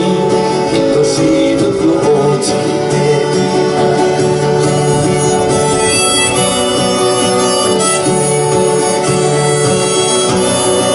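Acoustic guitar and harmonica playing an instrumental passage of a folk song, with high, held harmonica notes coming in about four seconds in.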